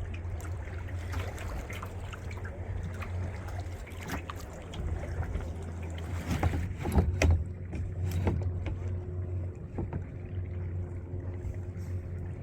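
Kayak on the water: paddle splashes and water sloshing against the hull, with a few knocks, most of them about six to eight seconds in, over a steady low hum.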